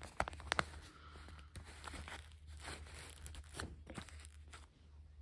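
Foam parts of a small RC plane being handled and pushed together: scattered sharp clicks and crackly rubbing, with a quick cluster of louder clicks in the first second.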